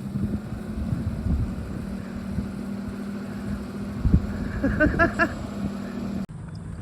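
Car engine running steadily as the vehicle drives along.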